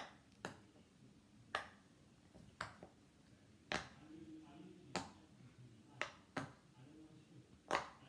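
Silicone pop-it fidget toy's bubbles being pressed one at a time from the side that gives the louder pop, about eight sharp pops at roughly one a second.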